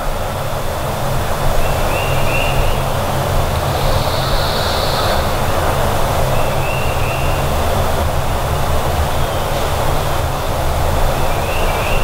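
A steady low engine drone, with three short high bird chirps about five seconds apart.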